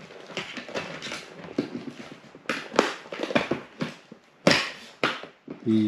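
Handling noise: rustling with a string of light clacks and knocks, the loudest about four and a half seconds in, as hard objects are picked up and set down.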